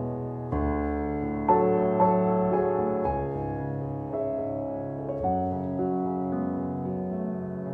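Background piano music: slow, soft chords and notes struck about once a second, each ringing on and fading.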